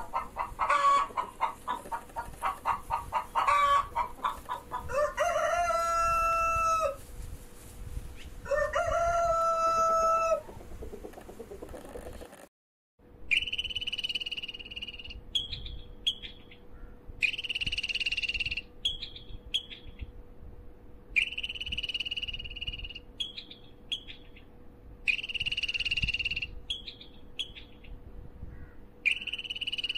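Chickens clucking rapidly, then a rooster crowing twice, each crow about two seconds long. After a brief silence about halfway through, a different high, steady call about a second and a half long repeats about every four seconds, each followed by a few short chirps.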